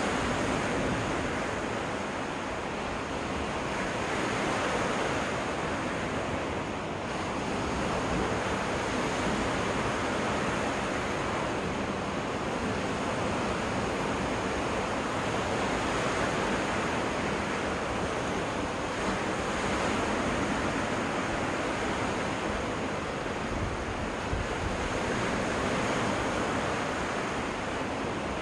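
Waves breaking on a freshwater lake beach: a continuous wash of surf that swells and eases every few seconds.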